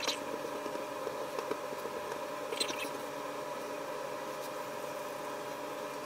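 A steady background hum with two short squeaks, one at the start and one about two and a half seconds in, while cracker dough is worked with a stainless rolling pin and bench scraper on a silicone pastry mat.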